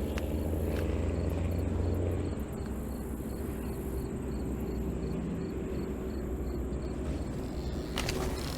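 Insects chirping in a steady rhythm, about two to three chirps a second, over a low rumble that drops away about two seconds in. A few sharp clicks come near the end.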